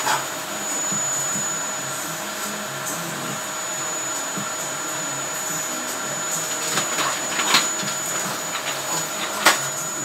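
Vacuum cleaner running with a steady whine as its floor head moves over a wooden floor, with a few sharp knocks in the second half.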